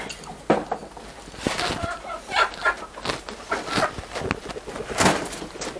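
Chickens clucking in short, repeated calls, with a few sharp knocks, the loudest about half a second in and near the end.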